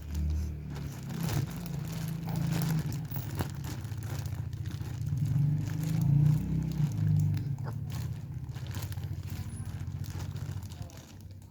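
Rubber balloons being squeezed and rubbed by a baby: a wavering low rubbing drone with crinkling and scattered taps, loudest in the middle and easing off near the end.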